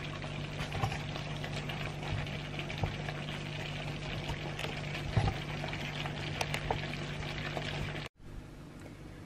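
Thick sour-cream beef stroganoff sauce simmering in a pan on a gas burner, a steady soft bubbling with small pops over a constant low hum. About eight seconds in it cuts off, leaving a quieter hiss.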